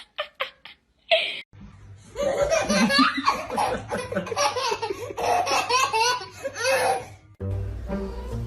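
People laughing hard for about six seconds, after a few short sounds in the first second. String music comes in near the end.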